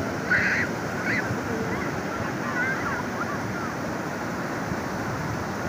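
Ocean surf washing steadily onto the beach, with wind on the microphone. A child's short high shriek about half a second in, and faint children's calls a couple of seconds later.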